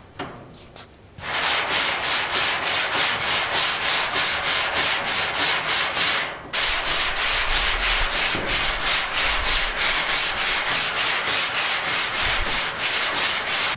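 Hand sanding block rubbing back and forth over an early Ford Bronco's steel hood, block-sanding a satin black guide coat off the primer and filler to show up high and low spots. Quick, even rasping strokes, about three or four a second, begin about a second in, with a short break a little past six seconds in.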